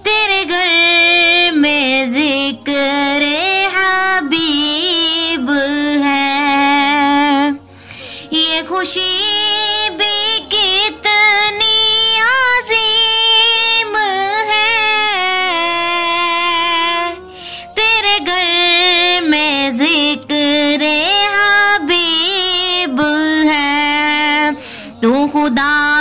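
A naat, an Islamic devotional song, sung by a high voice in long, ornamented melodic phrases, with brief pauses between lines about eight and seventeen seconds in.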